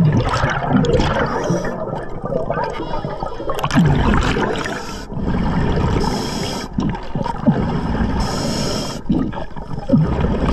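Scuba diver breathing through a regulator, heard underwater: irregular gurgling of bubbles, with a short hiss twice in the second half.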